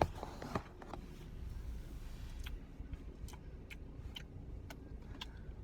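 Light, evenly spaced ticking, about two ticks a second, starting about halfway through, over a steady low rumble inside a car; a few sharp clicks right at the start.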